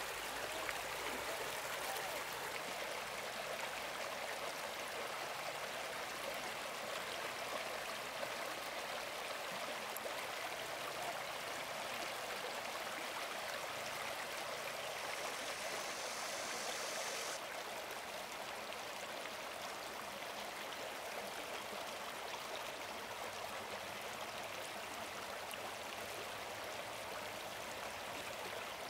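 Stream water running steadily, an even rushing wash. About halfway through, a higher hiss joins it for a couple of seconds and cuts off abruptly.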